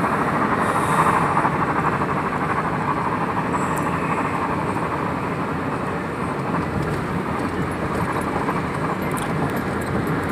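Steady road and engine noise heard inside a moving Ford's cabin: tyres on asphalt and the engine at cruising speed. The noise is a little louder in the first couple of seconds and eases slightly after about six seconds.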